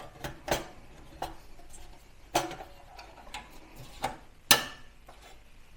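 A metal drive cage being fitted back into a small desktop PC's steel chassis: a scatter of light clicks and metallic knocks, the loudest about four and a half seconds in.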